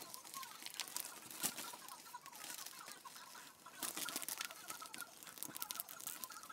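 Plastic vacuum-bag film crinkling and crackling under a hand pressed along the sealant-tape seal of a carbon fibre layup, over a steady hiss with faint wavering squeaks.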